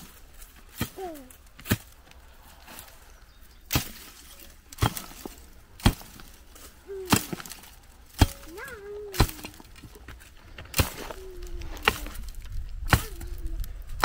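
Pickaxe striking stony ground and rockrose roots, a sharp crack roughly once a second.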